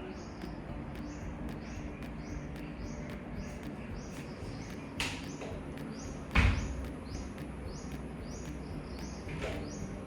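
A bird chirping repeatedly, about two short high chirps a second, over a steady low background hum. A few sharp knocks break in, the loudest about six seconds in.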